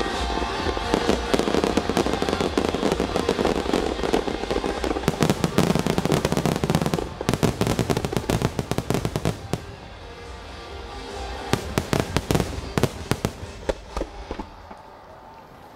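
Aerial fireworks shells bursting in a dense rapid barrage of bangs and crackles over music. After about ten seconds the barrage thins out to scattered bangs.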